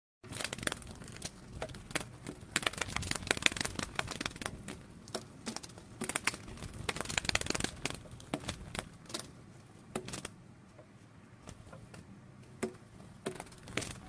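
Butterfly wing-flutter sound effect: a crackle of rapid, irregular clicks, dense for about the first ten seconds and then thinning out.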